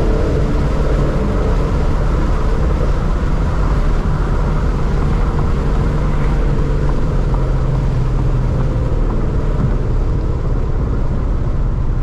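2013 Ford Mustang's 5.0 Coyote V8 driving at speed toward the end of a 0-to-80 mph run, its engine a steady drone beneath heavy road and wind noise.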